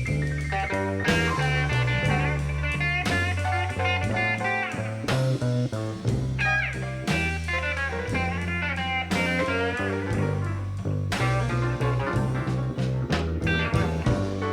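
Live blues band playing an instrumental break in a slow blues: a lead guitar line with bent notes over bass and drums.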